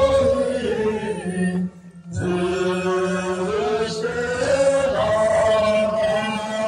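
A group of Tibetan voices singing a traditional song together in long held notes, with a brief pause for breath about two seconds in.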